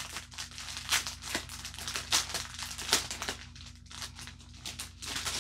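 Clear plastic bags of diamond-painting drills crinkling as they are handled, in a run of irregular crackles and rustles.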